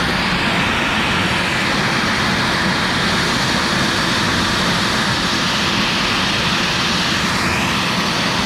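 CNC router spindle running steadily with dust-collection suction while a 45° V-bit carves PVC, a loud, even machine hiss.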